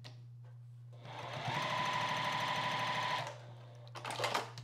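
Juki TL2010Q straight-stitch sewing machine stitching through fabric: it speeds up about a second in, runs steadily for about two seconds, then stops. A few light clicks follow near the end.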